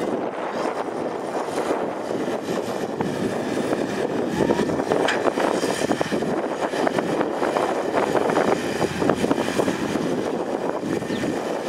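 Komatsu PC210 hydraulic excavator's diesel engine running steadily under load. From about four seconds in it is joined by a rattling clatter of soil and rocks as the bucket works over the dump truck.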